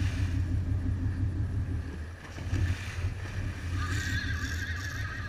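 Sportfishing boat's engines running with a steady low hum, with wind and water noise over it.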